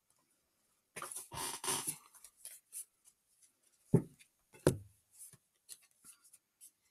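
Pokémon booster pack and cards being handled: a burst of crinkly wrapper rustling about a second in, then two heavy bumps about four seconds in, with scattered light taps and clicks.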